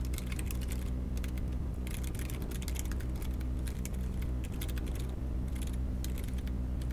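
Typing on a computer keyboard: rapid, irregular keystrokes as text is entered into form fields, over a steady low hum.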